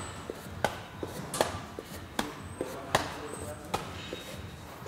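Low kicks landing on a man's thigh in a leg-conditioning drill. There are five sharp slaps in a steady rhythm, about three-quarters of a second apart.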